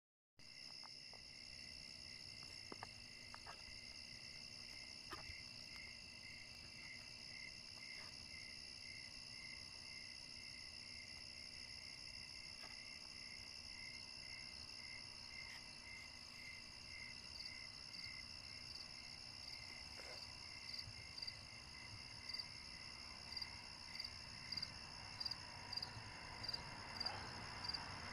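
Night insect chorus: crickets trilling steadily in several high pitches, with a regular pulsing chirp. About two-thirds of the way in, a second, higher chirp joins at the same beat and grows louder near the end.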